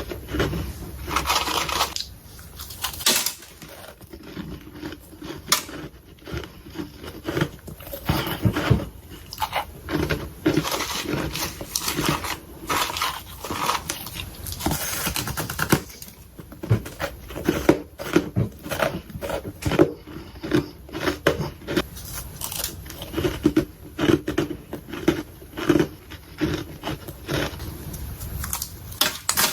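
Freezer frost being bitten and chewed close to the microphone: a nonstop run of dense, irregular crunches.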